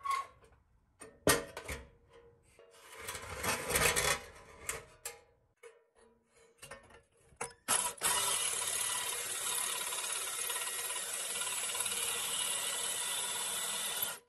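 A few knocks and a scraping rustle as the rusty pressed-steel toy body is handled. Then, about halfway through, a cordless drill bites into the rusty steel and runs steadily at an even level before stopping suddenly.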